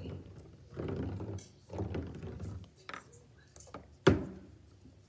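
Hands moving things about on a tabletop: soft handling sounds and a few light clicks, then one sharp thump about four seconds in.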